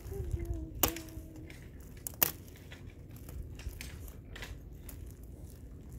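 Hand tools clicking sharply twice against metal pipework, about a second in and again a little after two seconds in, the second click the louder, over a low steady rumble. A steady humming tone with short breaks runs through the first second and a half.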